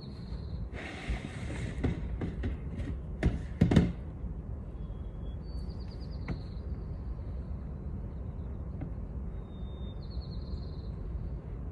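A few knocks and a short rushing noise, then a steady low rumble with short, high chirping trills that come and go.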